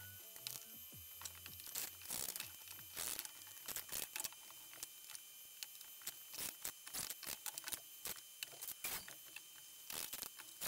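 Quiet workshop handling noise: an irregular string of short clicks and rattles as wooden strips are set in place and screws are picked out of a plastic box.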